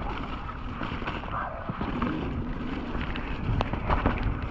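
Mountain bike running fast down a dirt trail: wind buffeting the microphone over a steady rumble of tyres on the ground, with scattered clicks and knocks from the bike.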